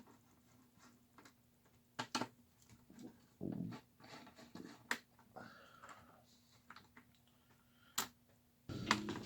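Scattered sharp clicks and light knocks from handling a rack unit's metal chassis and screws during disassembly, over a faint steady hum.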